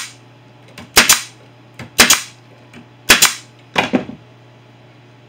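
Pneumatic brad nailer driving 1.5-inch brad nails into a plywood bracket: four sharp shots about a second apart, each with a faint click just before it.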